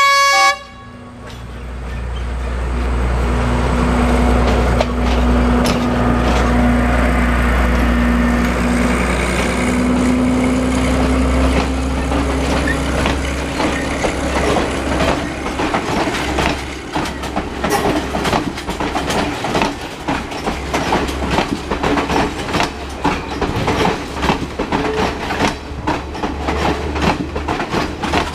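A train horn ends just as it begins. Then the diesel engines of a Sri Lanka Railways Class S12 railcar set drone as the train accelerates past, with an engine tone that rises about ten seconds in. From about halfway on, the wheels knock steadily over rail joints as the coaches roll by.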